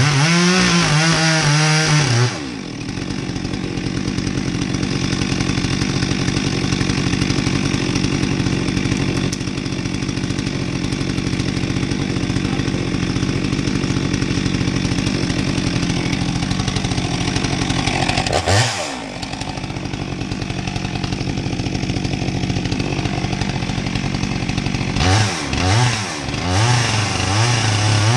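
Stihl two-stroke chainsaw at full throttle for about two seconds, then dropping to a steady idle for most of the time. A single quick rev comes about two-thirds of the way through, a few throttle blips follow near the end, and it opens up to full throttle again at the very end.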